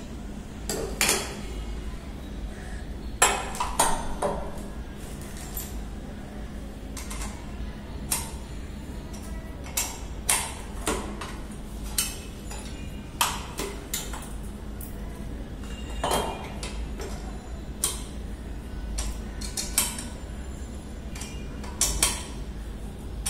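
Irregular metallic clinks and knocks as the steel tubes, brackets and bolts of a satellite dish mount are handled and fitted together, roughly one sharp knock every second or two.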